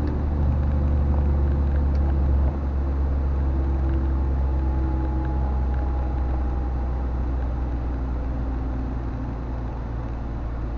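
Volvo FMX truck's diesel engine running, heard inside the cab as a steady low drone with road noise, which drops a little in level about two and a half seconds in.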